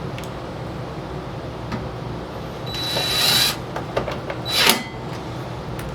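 Tool work on a snowblower's plastic engine shroud: a brief scraping, whirring burst about three seconds in and a shorter, sharper one just before five seconds, over a steady background hum.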